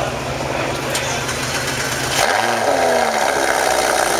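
Sports car engine starting about two seconds in: it catches with a quick rise and fall in pitch, then settles into a steady idle through its quad exhaust. A steady low engine drone runs before it.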